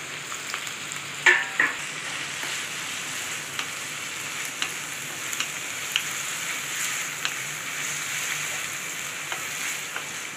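Chopped onions sizzling and crackling in hot oil in a metal kadai, freshly added and frying towards light brown, stirred with a wooden spatula. A louder clatter of the spatula against the pan about a second in.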